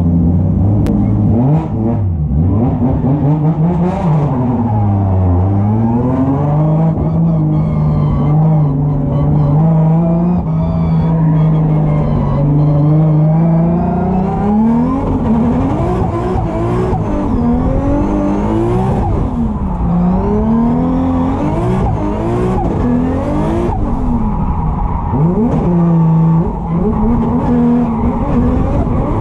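Drift car's engine at full effort on track, its revs swinging up and down again and again, held high and steady for a few seconds around the middle.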